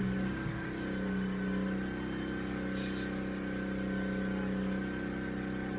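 Steady low mechanical hum at a constant pitch, with a thin faint whine above it and a short click at the start.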